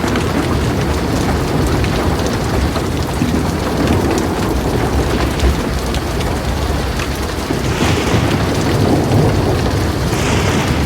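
Heavy rain falling steadily with a deep, continuous rumble of thunder underneath and scattered sharper drop hits.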